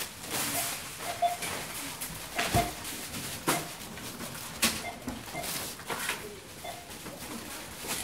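Supermarket checkout barcode scanner beeping, short beeps about once a second, among sharp knocks and rustling.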